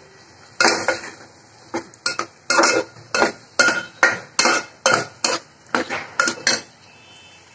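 A steel spoon knocking and scraping against an aluminium pressure cooker while stirring boiled black chickpeas into masala: a run of sharp clinks, about two or three a second, that stops near the end.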